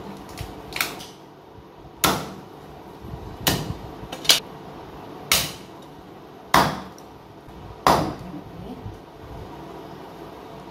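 Meat cleaver chopping a whole raw chicken into pieces: about seven sharp chops at irregular intervals of roughly a second.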